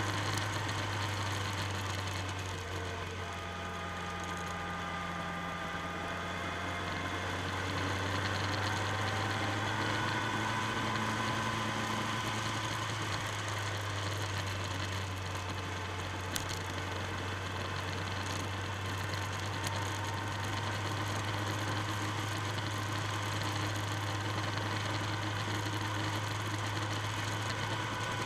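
Motorcycle engine running steadily while riding. Its pitch dips as the throttle eases about three seconds in, then rises again as it picks up speed.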